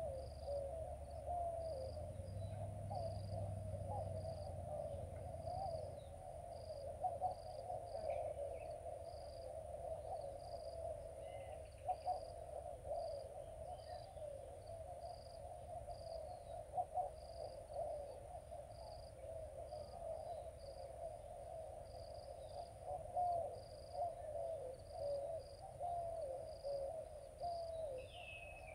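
Riverside outdoor ambience: a continuous, dense chorus of low cooing and hooting bird calls, with a regular high insect chirp about once a second and a steady high insect whine. There is a low rumble in the first few seconds.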